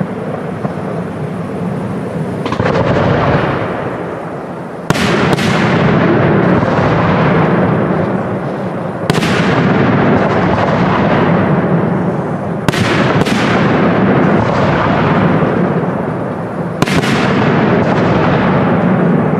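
Aerial firework shells bursting in a professional display: sharp bangs, mostly in pairs about every four seconds, each followed by a long rolling rumble that fades slowly.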